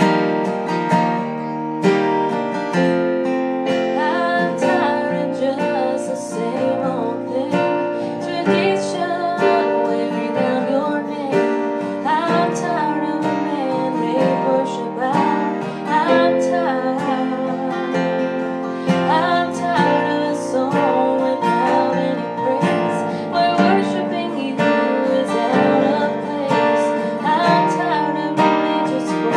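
Strummed acoustic guitar with singing over it.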